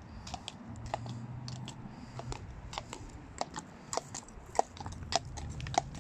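Horse's hooves striking tarmac in an uneven clip-clop, about three to four strikes a second, getting louder in the second half as the horse draws alongside.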